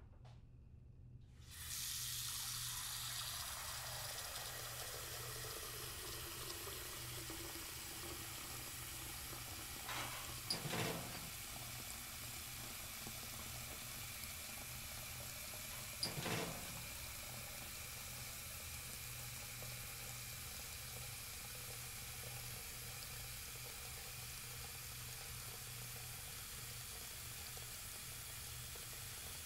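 Kitchen tap turned on about a second and a half in, water running steadily into a stainless steel sink while dishes are washed. Two brief knocks partway through, about ten and sixteen seconds in.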